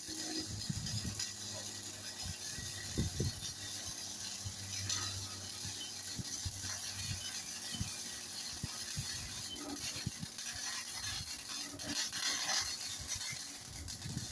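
A MIG welder running a short-circuit (short arc) pass on thin square tubing. The arc makes a steady hiss with an irregular stream of crackles and pops.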